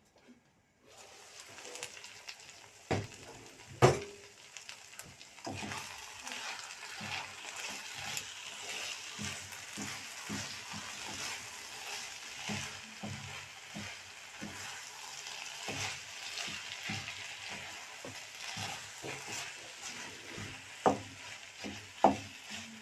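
Meat pie filling sizzling as it fries in a pan, stirred with a spoon that scrapes and knocks against the pan. It starts about a second in, with the sharpest knocks near four seconds and again near the end.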